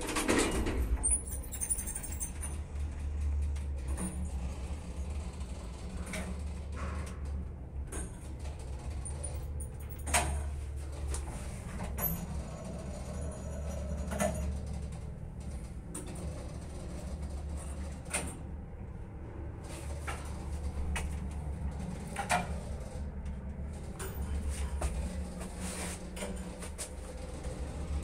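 1989 SamLZ passenger lift with a 4AN-160 hoist motor, running as the car travels: a steady low hum, with scattered clicks and knocks from the car and shaft. The car doors shut right at the start.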